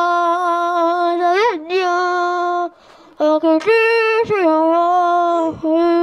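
Child sounding long held notes into a blue plastic pop tube toy held at her mouth, used like a horn. The notes stay mostly on one pitch, with a short upward bend about a second and a half in, a higher note near the middle, and brief breaks at about three and five and a half seconds.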